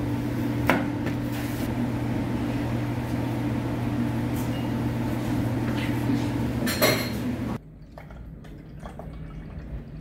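Dishes and cutlery clinking a couple of times over a steady low mechanical hum. The hum cuts off suddenly about three-quarters of the way through, leaving a much quieter background.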